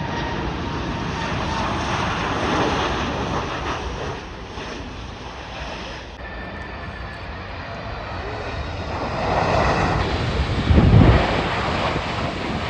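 Boeing 747 freighter's four jet engines passing low overhead on landing approach: a loud, dense rush of engine noise with a faint whine, swelling to a deep rumble at its loudest about three-quarters of the way through.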